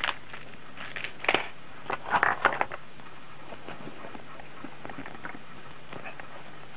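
Clear plastic packaging crinkling as it is handled: a few sharp crackles over the first two and a half seconds, then only faint light rustles.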